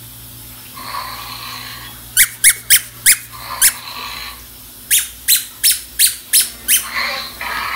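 Squeakee balloon-dinosaur toy set squeaking: short, sharp squeaks, five in an uneven group and then a pause, followed by an even run of six at about three a second, as the freshly battery-powered toy is tested.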